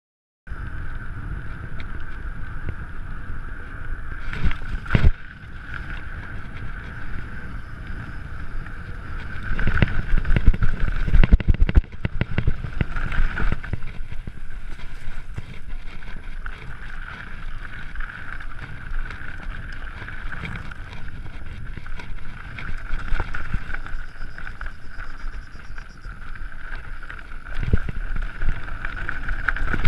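Mountain bike ridden fast over a dirt and gravel trail: the tyres rumble over rough ground, with hard jolts and knocks from bumps, heaviest around five seconds in, around ten to twelve seconds, and near the end. Wind buffets the microphone throughout.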